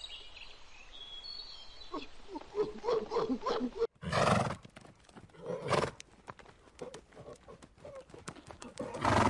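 Horses neighing: three short, loud calls, about four seconds in, again near six seconds and at the end, with light clicks between them.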